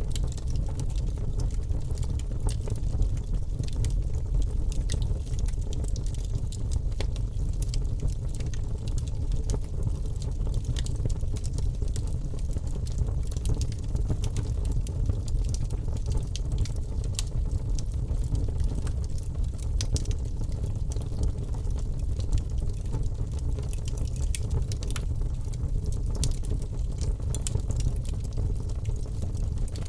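Wood fire crackling in a fireplace: a steady low rumble with frequent sharp pops and snaps scattered throughout.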